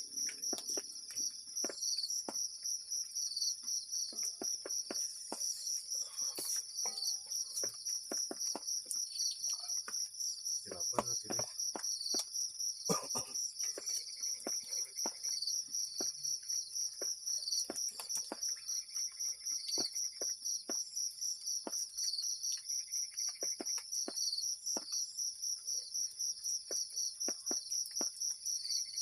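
Insect chorus trilling steadily in a fast, even pulse, with scattered faint clicks and taps.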